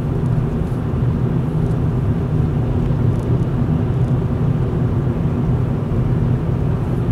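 Steady engine and road noise of a car driving, heard from inside the cabin: an even low rumble with no change in pitch.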